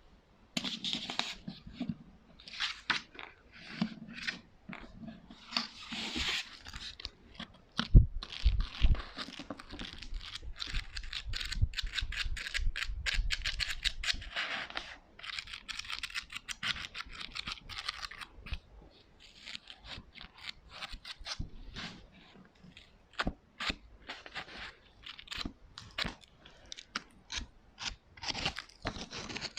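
Close-miked ASMR tapping, scratching and crinkling on assorted small objects, in irregular runs of quick taps. A denser stretch of rapid tapping with low thumps comes about a third of the way in.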